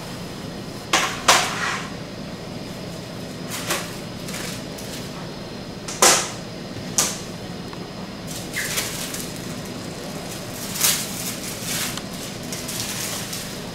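Scattered clicks and knocks as a chocolate ganache slab on a clear plastic sheet and parchment is handled and set onto a stainless-steel wire chocolate guitar cutter, with a short rustle of parchment paper near the end. A steady low hum runs beneath.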